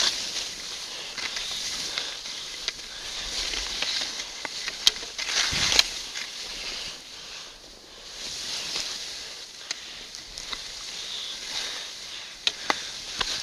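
Hiss of skiing or riding through soft powder snow, swelling and fading with the turns, with a few sharp clicks and a low knock about five to six seconds in.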